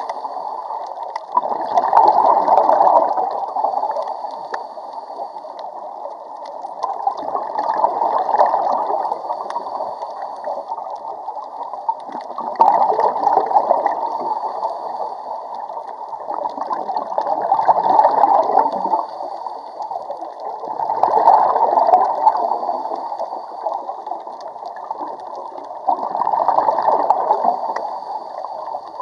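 A scuba diver breathing through a regulator underwater, the exhaled bubbles gurgling in swells roughly every five seconds, one for each breath.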